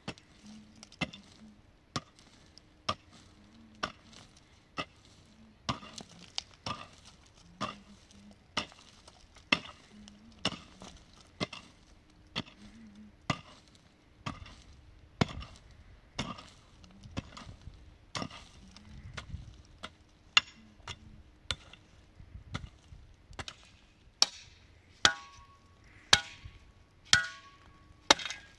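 Repeated blows of a hand tool, about one a second. The last several strikes ring with a clear metallic tone.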